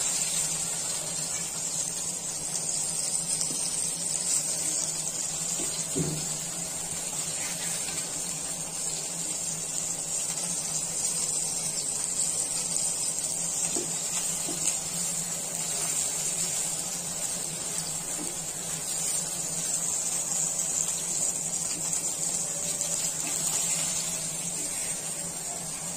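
Bombil (Bombay duck) fish sizzling steadily as they shallow-fry in hot oil in a pan, with a couple of faint spatula knocks against the pan.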